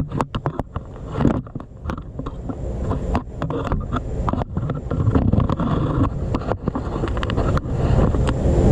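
Irregular light clicks and knocks from handling a cruise control vacuum servo and its mounting hardware while fitting it in the engine bay, over a low steady rumble.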